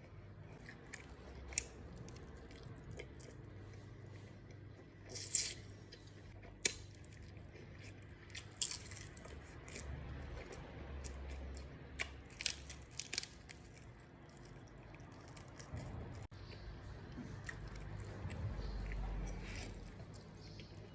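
Close-up eating sounds of pasta and fried chicken: steady chewing, with sharp crunches and bites scattered through, most of them in the middle stretch.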